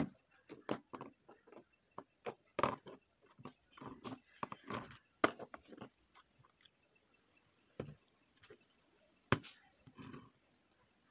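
Irregular taps, knocks and small clicks of craft materials being handled on a tabletop, loudest right at the start and with a sharp click about nine seconds in, over a faint steady high-pitched hiss.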